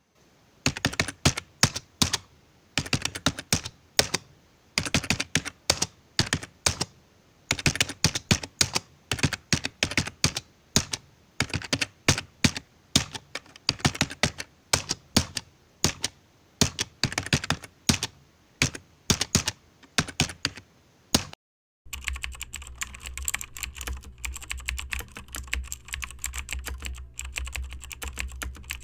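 Typing on a computer keyboard: quick runs of separate key clicks broken by short pauses. After a brief break about 21 seconds in, lighter, more continuous typing follows over a steady low hum.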